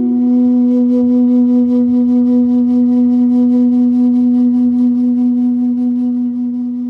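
Background music: a flute-like wind instrument holding one long, low note with a steady pitch.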